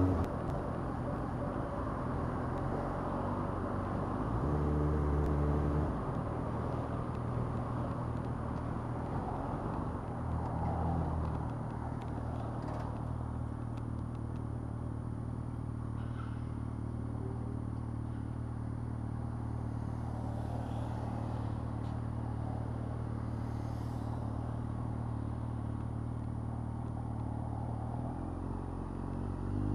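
Yamaha FZ8's inline-four engine running at low revs through slow traffic. The revs rise briefly about five seconds in and again around ten seconds, then settle to a steady low note. Near the end the revs climb as the bike pulls away.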